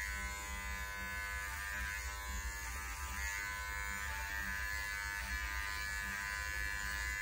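Electric dog grooming clipper fitted with a snap-on guide comb, running with a steady hum as it is pushed against the grain through the dog's coat.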